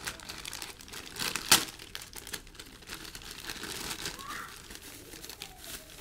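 Packaging crinkling and rustling as a box is opened and its contents handled, with one sharp click about one and a half seconds in.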